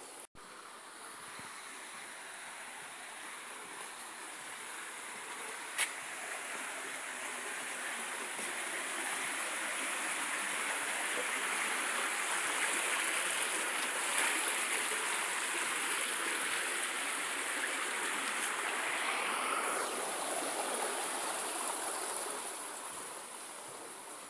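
Heavy rain pouring onto a tiled roof: a steady wash of noise that swells through the middle and fades near the end. One sharp click about six seconds in.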